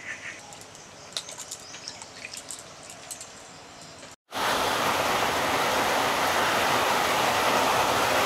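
A few faint, scattered clicks for about four seconds, then after an abrupt cut, loud, steady rain falling.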